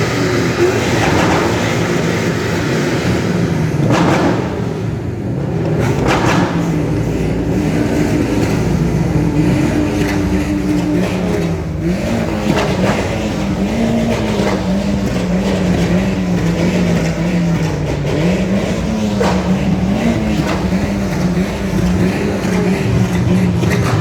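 A loud, steady engine-like drone whose pitch wavers slowly up and down, with a few brief clicks.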